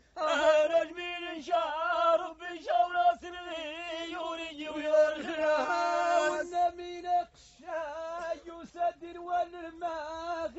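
A man chanting verses of Amazigh metered poetry in a melismatic style, with long held notes that waver and glide between syllables and a short breath break about seven seconds in. No instruments accompany the voice.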